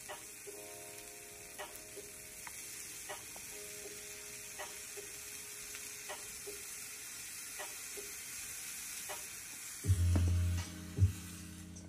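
Food sizzling steadily in a miniature frying pan, with light clicks every second or two. About ten seconds in, loud low music notes come in over it.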